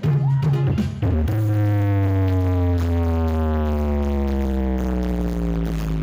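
Loud electronic dance music with heavy bass, played through a Blizzard Audio horeg sound system. About a second in, a long synth tone starts and slowly falls in pitch over several seconds above a steady deep bass.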